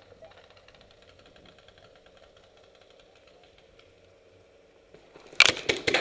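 Paintball fire: a rapid, uneven volley of sharp cracks and smacks breaks out about five seconds in, after a few seconds of faint background.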